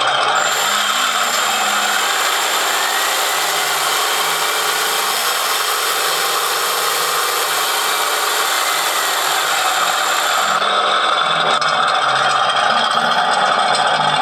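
Model Tiger I RC tank run by an IBU2 Pro sound board: the board's simulated tank engine sound runs throughout. From about half a second in, a power-tool-like electric motor whir joins it, and it stops suddenly at about ten and a half seconds.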